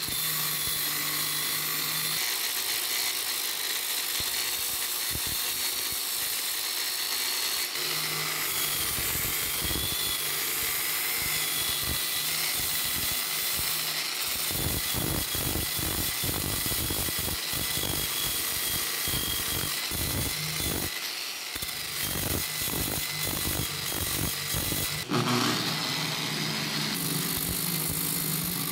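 Electric angle grinder running with a steady high whine while its abrasive disc grinds rust off a steel wrench, with irregular scraping as the disc works against the metal in the second half.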